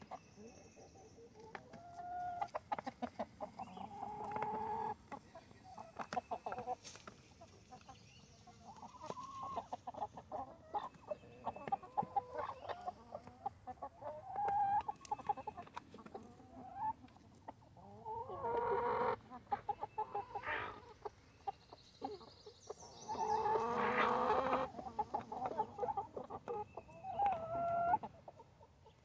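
Backyard hens and roosters clucking and calling over one another, in many short calls with a few longer, louder calls about two-thirds of the way through and again near the end.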